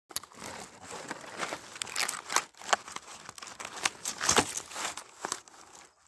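Dry grass and leaves rustling and crackling close to the microphone, a dense run of irregular crisp snaps and crinkles.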